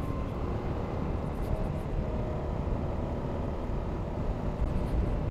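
Honda Forza 250 (MF17) scooter riding at a steady pace: a low, even rumble of engine, wind and road noise with a faint steady hum.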